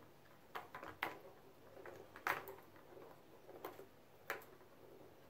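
Plastic balls clicking and rattling in the tracks of a three-tier plastic ball-track cat toy as a kitten bats at them: about five short, sharp clicks at irregular intervals.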